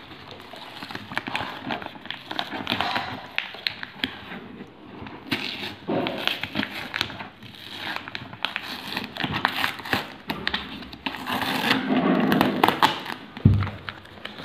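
Packing tape being peeled and torn off a cardboard box, with crinkling and crackling throughout. A dull thump near the end.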